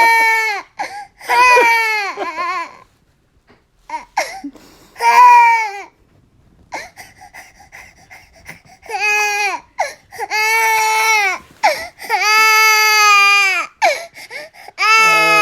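Infant crying in a series of loud, high wails of about a second each, pausing for a few seconds midway before starting up again.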